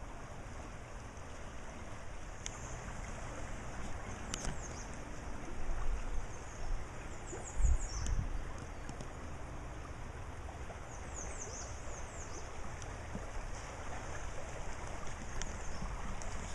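Steady rush of a flowing stream, with short high chirps now and then. A couple of low wind gusts hit the microphone around the middle.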